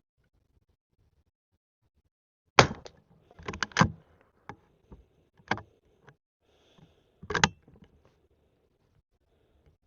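Henry lever-action .22 LR rifle being shot with standard-velocity rounds: a few quiet, sharp reports mixed with the clacks of the lever being worked between shots, in uneven clusters over about five seconds.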